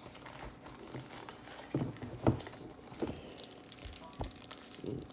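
Packaging rustling and crinkling with a few scattered light knocks as the converter's plug accessories are unpacked by hand.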